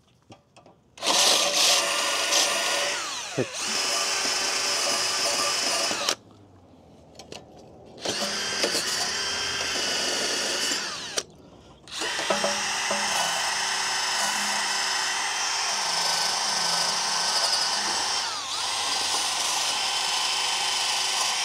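DeWalt 20V cordless drill spinning a wire cup brush against the rusty brake hub, cleaning up its edges. It runs in three spells with short stops between, the last the longest, with a steady motor whine that dips briefly when the brush bites.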